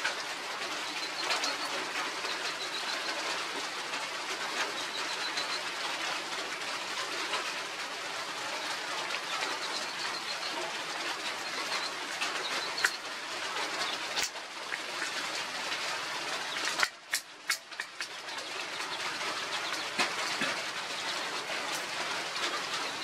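Steady outdoor hiss with runs of faint, high bird chirps and a few scattered clicks. The hiss drops out briefly about 17 seconds in.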